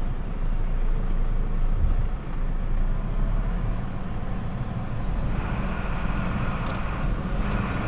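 Truck's diesel engine running at low speed, heard from inside the cab as a steady low rumble. About five seconds in a steady hiss joins it, dropping out briefly near the end.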